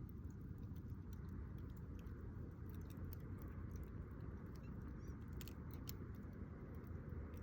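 Wood campfire crackling: scattered sharp pops over a steady low rumble, with a small cluster of pops about five to six seconds in.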